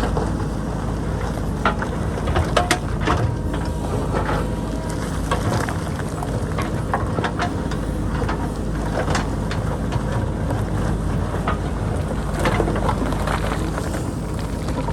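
JCB backhoe loader's diesel engine running steadily under load, with frequent sharp knocks and scrapes of the bucket digging into rock and boulders.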